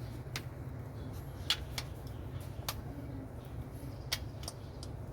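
Scattered sharp metallic clicks and taps of hand tools working the rocker-arm adjusting screws and locknuts while the valve clearances of a 6D16 diesel engine are set, over a steady low hum.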